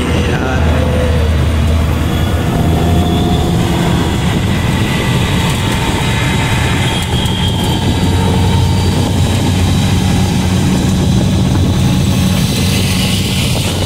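Auto-rickshaw engine running with a steady low drone as it drives along the road, heard from inside the open passenger cabin.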